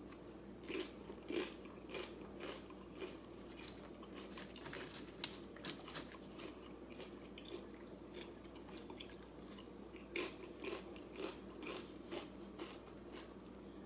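A person biting and chewing loaded nachos made with crunchy tortilla chips, close to the microphone: irregular crisp crunches, one or two a second, with one sharper crack about five seconds in.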